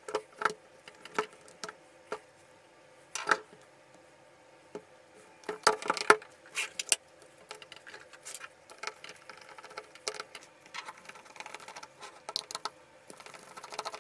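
Hand disassembly of an old Black & Decker corded drill: a screwdriver working screws out of the plastic housing, with scattered clicks and knocks as screws, tools and the drill are handled and set down on a wooden bench. The loudest knocks come in a cluster about halfway through.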